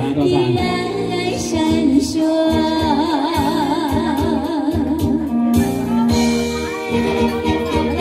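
A woman singing a ballad through a handheld microphone over recorded backing music, holding a long note with wide vibrato in the middle of the stretch and then another sustained note.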